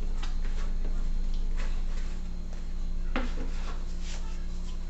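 Kitchen handling sounds of a bowl and dough being worked on a counter: soft rubbing and a few light knocks, with one sharper knock about three seconds in. A steady low hum runs underneath.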